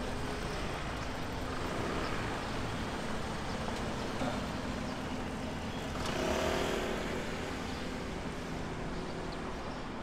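Steady outdoor city ambience with road traffic noise. It swells louder for about a second around six seconds in.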